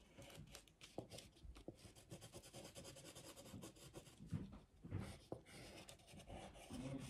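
Faint scratching of an oil pastel stick on paper: rapid short strokes as colour is worked onto a drawing.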